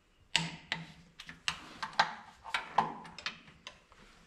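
Torque wrench ratcheting on an engine bolt: a run of sharp, uneven clicks as the bolt is pulled up in stages to 70 ft-lb.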